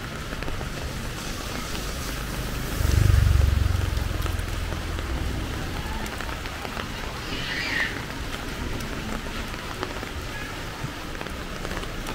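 Heavy rain falling steadily, with a brief low rumble about three seconds in.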